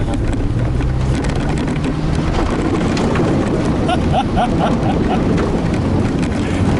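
Toyota Hilux engine running under load as the truck drives over rough off-road ground, with many short knocks and rattles from the truck jolting over the terrain.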